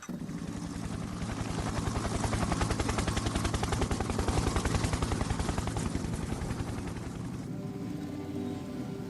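Background music that cuts abruptly into a fast, rapidly pulsing track at about ten pulses a second, with sustained tones returning near the end.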